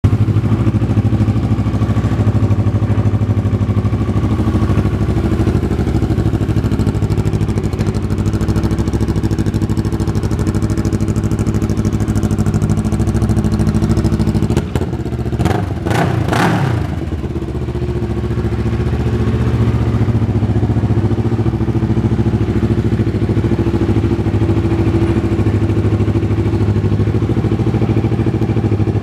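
2006 Kawasaki Ninja 650R's parallel-twin engine idling steadily. The sound is briefly disturbed about halfway through, then settles back into a steady idle.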